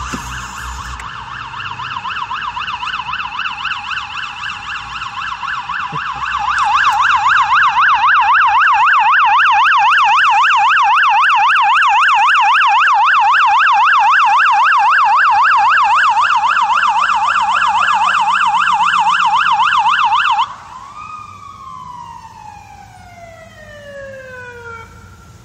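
Police motorcycle sirens on a fast yelp, warbling rapidly up and down. The sound grows louder about six seconds in. About 20 seconds in the yelp stops and the siren winds down, its tone falling steadily over the last few seconds.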